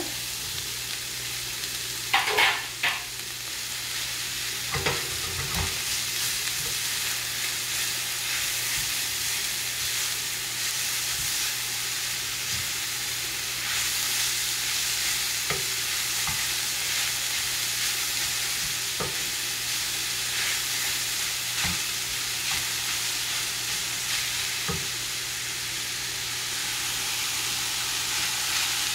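Grated raw mango frying in hot oil in a pan, sizzling steadily as it is stirred, with a spoon knocking against the pan now and then. The loudest knocks come about two seconds in.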